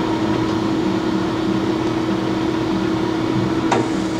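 Hardinge HLV-H precision lathe running steadily with its spindle in the high speed range, a constant hum over mechanical noise. A single sharp click sounds near the end.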